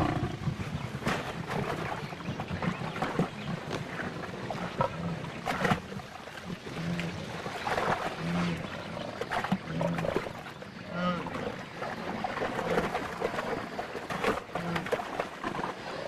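Lioness growling as she attacks a wildebeest herd, amid a commotion of sudden knocks and splashes, with short low calls repeating about once a second.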